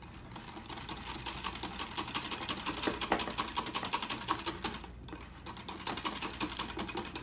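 Wire whisk beating fast against a small glass bowl, a quick run of clicks that stops briefly about five seconds in and then starts again: squash puree, brown sugar and cream being whipped until stiff.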